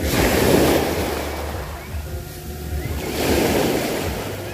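Waves breaking and washing up the beach: two surges of surf, the second about three seconds after the first.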